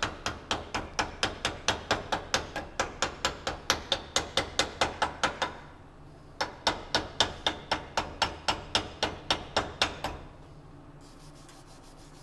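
Chipping hammer knocking slag off a fresh stick-electrode weld deposit on a steel plate clamped in a vise. Sharp metallic taps come about four a second, in two runs with a short break about halfway, and stop a couple of seconds before the end.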